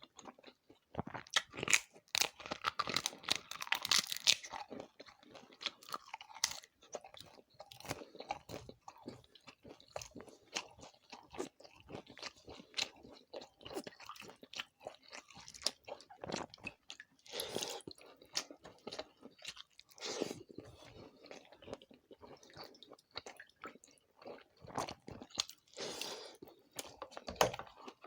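Close-miked chewing and crunching of crisp food by a person eating: irregular crackling bites and chews, busier in a few clusters.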